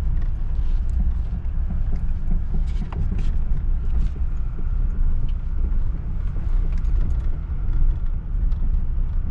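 Car driving slowly over a rough dirt and gravel track, heard from inside the cabin: a steady low rumble of tyres and body, with many small scattered knocks and rattles.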